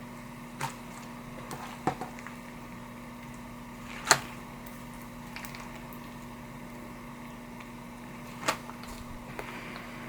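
Slime with foam beads mixed in being squished and worked by hand, giving a few short sharp pops and clicks, the loudest about four seconds in, over a steady faint hum.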